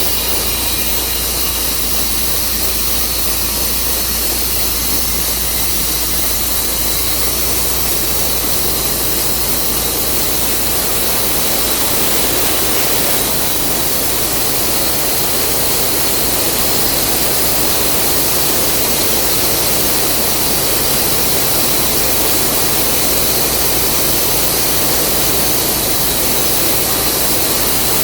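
Tru Cut sawmill running through a large maple log: a loud, steady, hissing noise with no clear pitch, a little fuller from about halfway through.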